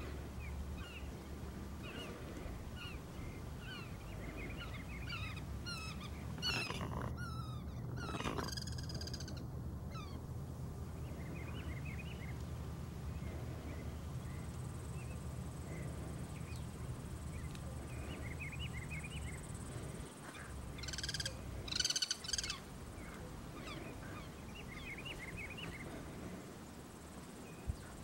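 Outdoor ambience of many short, high chirping animal calls. Louder, harsher call sequences come about seven seconds in and again about twenty-one seconds in, over a steady low rumble.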